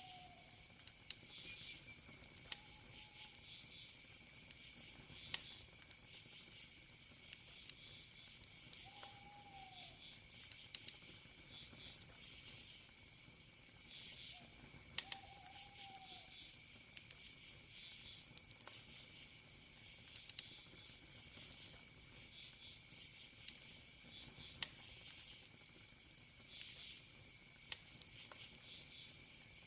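Faint wood campfire crackling, with occasional sharp pops, over a steady high cricket trill and pulsing insect chirps. A few short, arched calls sound about 9 and 15 seconds in.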